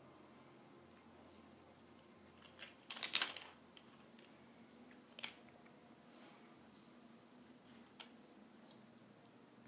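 A dog tearing the paper wrapping off a chew treat and gnawing at it: a few short crinkling, crunching sounds, the loudest cluster about three seconds in and single brief ones near five and eight seconds.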